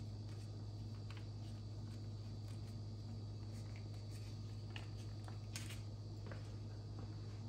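Faint crinkling and a few small clicks from a plastic pouch of curry paste being squeezed and worked by hand, the sharpest click about five and a half seconds in, over a steady low hum.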